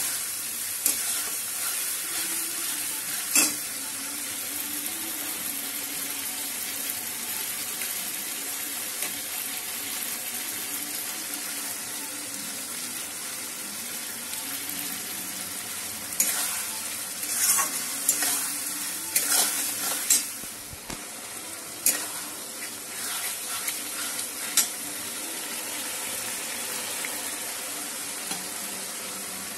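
Onions and capsicum sizzling in sauce in a metal wok as they are stirred, with a metal spoon scraping and knocking against the pan now and then, most often in the second half.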